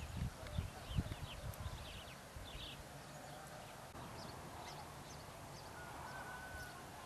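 Outdoor ambience: low buffeting on the microphone in the first second or so, faint bird chirps during the first half, and a faint drawn-out tone near the end.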